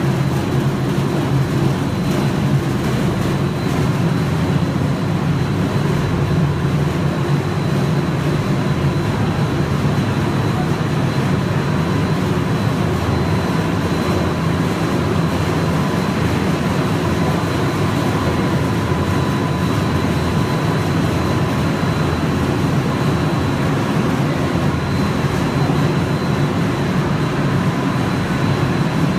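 Snack pellet production line machinery running: a loud, steady factory din with a low hum and a faint high whine held throughout.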